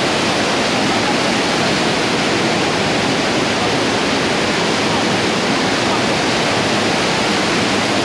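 Waterfall pouring into a plunge pool: a loud, steady, even rush of falling water.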